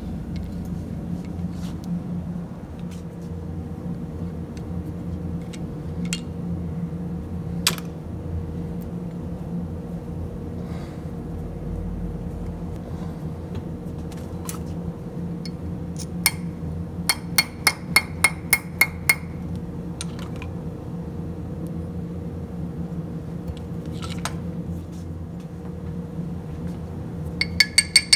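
Light hammer taps on steel at the vise base: a quick run of about eight ringing metal strikes, roughly four a second, with a few more taps near the end. Scattered single clinks of tools being handled, over a steady low hum.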